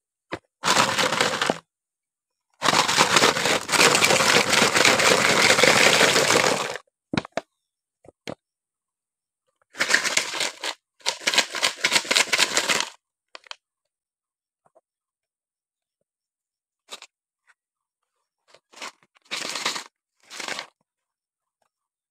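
Plastic soda bottles being handled, crackling in several bursts: a short one about a second in, a long loud one of about four seconds, two more around ten to thirteen seconds, and fainter ones near the end.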